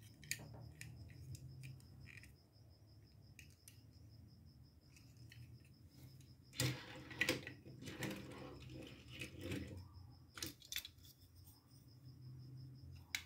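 Small toy garbage truck handled and set down on a wooden tabletop: scattered light clicks and plastic rattles, with a busier stretch of clatter a little past the middle and a couple of sharper clicks near the end.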